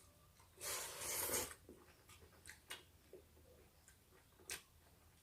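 Quiet eating sounds: a short breathy rush about a second in, then faint scattered clicks from chewing and hands at the plate.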